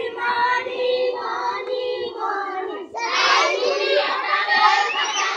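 A group of children singing a chant together. About three seconds in, the voices get louder, with many children sounding at once.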